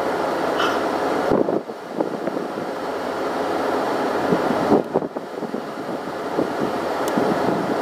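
Wind rushing over an outdoor microphone, a steady noise that drops out briefly twice, about one and a half and five seconds in.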